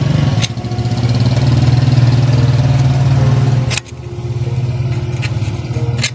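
An engine running steadily with a low, rhythmic hum. Not quite four seconds in, the sound drops sharply, and the engine carries on more quietly.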